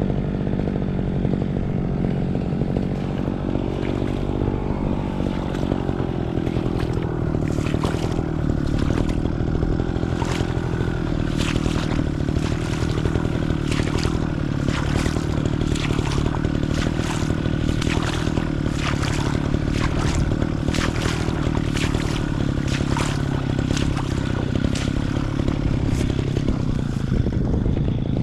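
Small two-stroke grass cutter engine running steadily at a constant speed. From about seven seconds in, a string of sharp ticks and rattles, one or two a second, comes through over the engine.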